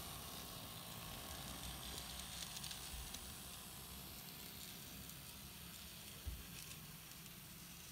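KATO N-gauge DE10 model diesel locomotive running slowly on the track: a faint, crackly whir of its small motor and wheels with scattered light ticks, and one soft low thump about six seconds in. Its maker's model is known for rough slow running and an odd running noise, which the owner finds in this one too.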